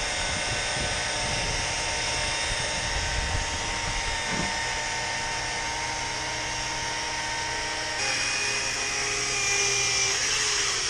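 Electric rotary polisher running steadily with a high motor whine as its pad works stains off window glass. Near the end it is switched off and winds down in falling pitch.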